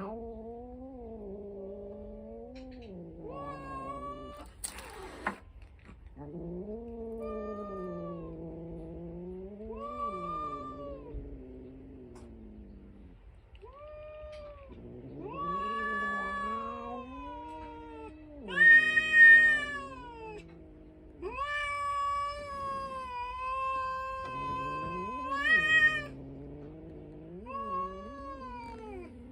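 Two domestic cats caterwauling at each other in a territorial standoff: long, wavering low yowls alternate and overlap with higher drawn-out wails. The loudest is a high wail about two-thirds of the way through.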